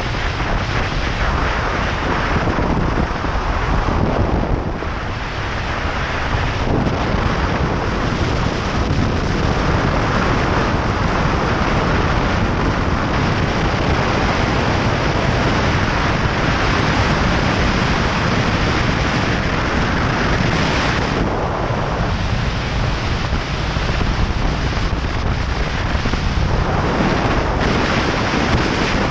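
Wind rushing over a camera microphone on a moving BMW R1200GS motorcycle at road speed: a steady loud roar of air noise that buries the engine and tyres.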